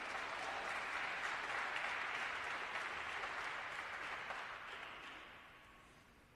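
Audience applauding, holding steady for about five seconds and then dying away near the end.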